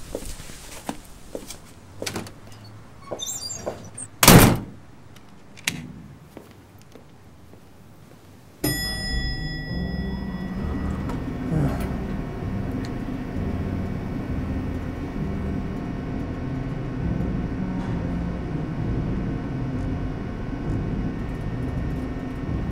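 A few scattered knocks and clicks with one loud thud about four seconds in, then from about eight and a half seconds a steady low rumbling noise with faint steady tones starts suddenly and keeps going.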